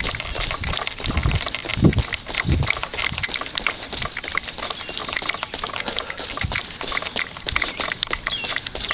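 A runner's footsteps on wet asphalt, with his breathing and knocks from the handheld camera; a few heavier low thumps in the first couple of seconds.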